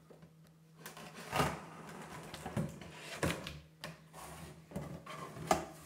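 Utility knife slitting the packing tape on a cardboard box, with scraping and rustling of the cardboard flaps in irregular strokes, three of them louder.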